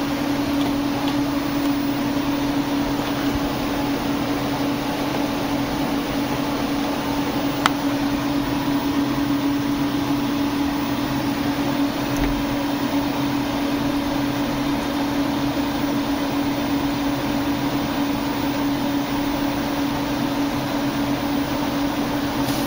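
Steady computer hum with one clear steady tone over a soft even whir, and a single faint click about eight seconds in.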